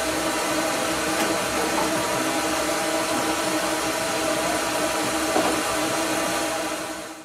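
Steady hiss of steam escaping from a narrow-gauge steam locomotive being raised in steam after its fire is lit, with a steady hum under it.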